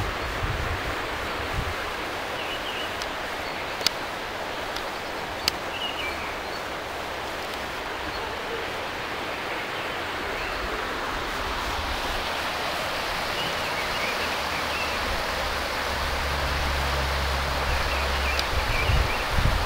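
Shallow river rushing and rippling over stones: a steady, even hiss of running water.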